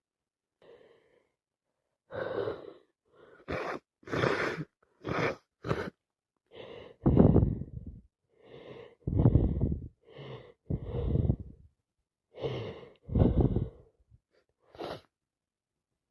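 A person with a wet head cold sniffling and breathing through a congested nose: about a dozen short noisy bursts in a row, several of them coming in pairs of a quieter one and then a louder one.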